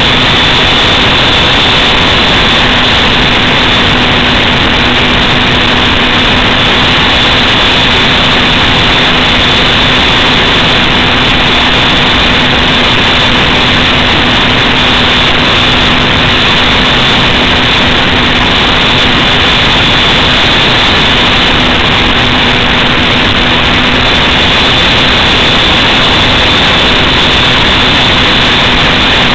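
Steady, unchanging drone and hiss from on board a flying FPV aircraft: its motor and propeller running at constant speed with wind rush, over a steady hum.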